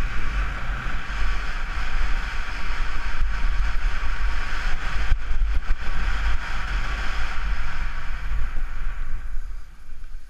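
Wind buffeting a GoPro's microphone and skis hissing over packed snow on a fast downhill run. The hiss fades away near the end as the skier slows.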